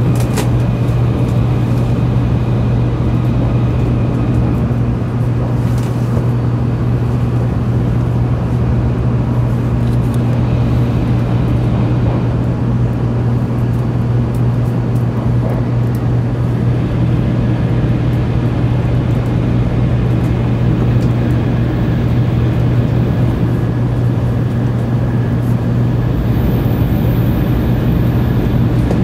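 Cabin noise of a 700 series Shinkansen running at speed: a steady rumble with a strong low hum.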